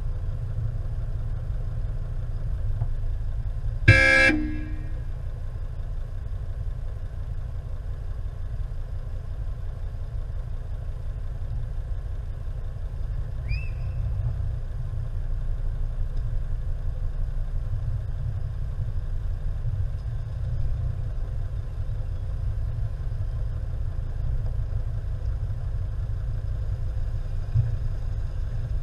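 A car horn gives one short toot about four seconds in, over a steady low rumble.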